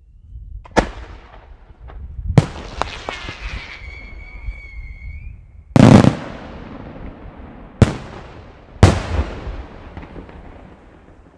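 Aerial firework shells bursting in the sky: about six loud booms, the heaviest a little before halfway, each followed by a fading rumbling echo. A high steady whistle sounds for about a second and a half between the early bursts.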